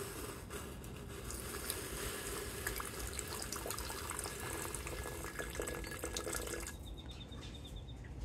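Water poured in a steady stream into a glass beaker of crushed IC chips, filling it for a nitric acid wash that strips the base metals; the pour stops abruptly shortly before the end.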